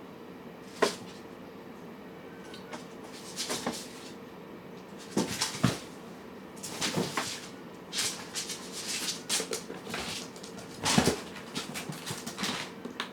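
Cats and kittens eating from food dishes: irregular clicks, knocks and rustles of crunching and of bowls being nudged, with a sharp knock about a second in.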